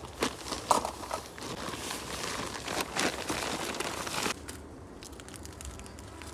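Nylon tent fabric rustling and crinkling with a few sharp crackles as someone climbs into a small dome tent. It stops about four seconds in, leaving a quieter background.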